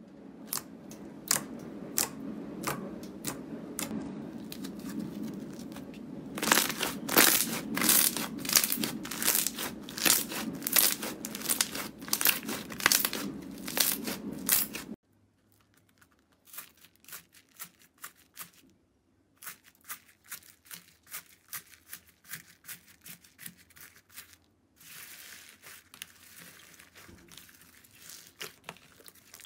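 Hands pressing, squeezing and kneading slime: a run of sticky crackling clicks and pops. The clicks are dense and loud for the first half, then drop suddenly about halfway through to quieter, sparser pops that thicken again near the end.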